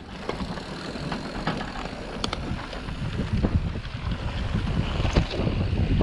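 Mountain bike riding a dirt trail: wind buffeting the microphone over a steady rumble of tyres and rattling bike, with scattered sharp knocks, getting louder over the first few seconds.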